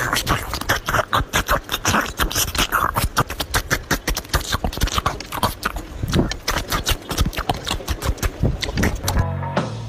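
Metal spoons clinking and scraping against ceramic dinner plates while eating rice: a fast, irregular run of sharp clicks and taps.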